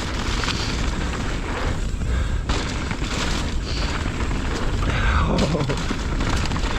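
Wind buffeting the camera microphone over the hiss of knobby mountain bike tyres rolling fast on a dirt trail, with the bike rattling over bumps.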